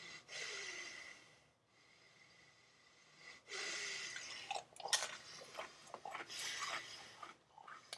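A man breathing out heavily twice, then a run of sharp crackles and crunches from a fortune cookie being broken and chewed.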